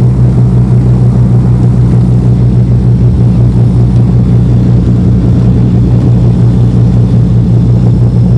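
A Beechcraft Baron's twin piston engines and propellers running steadily, heard loud from inside the cabin.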